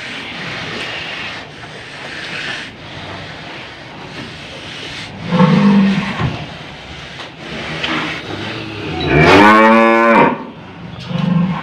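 A restrained old cow bellowing while a rope is fitted through its nose: a short low moo about five seconds in, then a long, loud bellow near the end.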